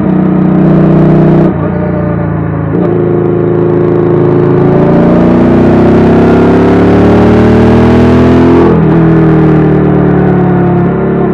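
Royal Enfield 650 parallel-twin motorcycle engine under way. The engine note dips about a second and a half in and picks back up, then climbs slowly in pitch for several seconds before dropping sharply near nine seconds and running on steadily.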